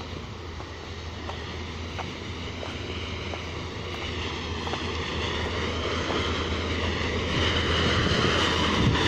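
Diesel engine of a Volvo wheeled road-rail excavator running as it travels along the track, growing steadily louder as it approaches. Faint clicks come about every two-thirds of a second in the first few seconds.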